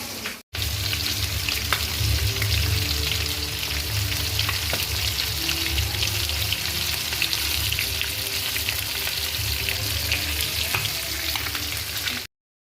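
Food frying in hot oil in a pan, a steady sizzle with many small crackles, while it is stirred. It cuts off abruptly near the end.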